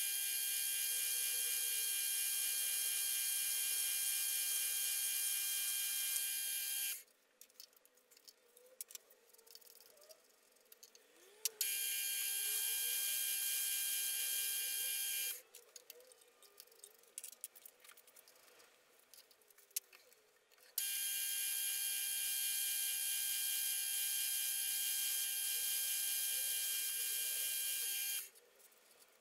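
Drilling machine running with a twist drill boring holes in a metal plate: a steady high-pitched machine whine in three stretches of several seconds each, each cutting off abruptly, with faint clicks in the quieter gaps between them.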